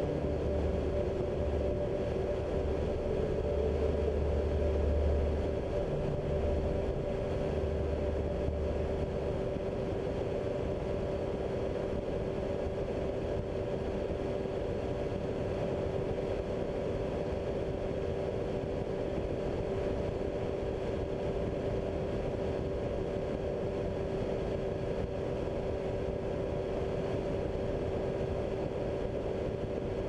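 Ultralight trike's engine and pusher propeller running steadily in cruising flight: an even drone with a steady hum, mixed with rushing wind. A low rumble comes and goes in the first several seconds.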